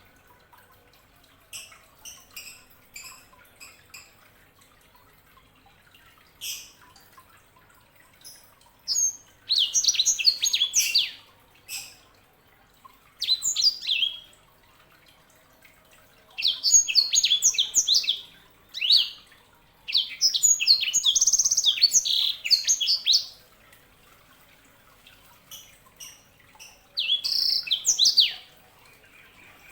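Yellow-fronted canary singing: scattered short chirps, then about six bursts of fast, high warbling song, each lasting a second or two, the longest about three seconds.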